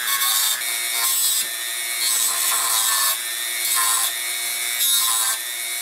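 Dremel rotary tool with a cut-off wheel grinding the steel tip of a hex wrench into a tri-wing bit. The motor runs with a steady whine while a gritty grinding hiss swells and fades every second or so as the wheel is pressed onto the metal and eased off.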